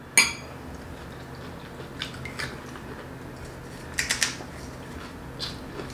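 A metal spoon clinks sharply against a glass bowl, then a few fainter taps and clicks of spoon and puris being handled, over a low steady hum.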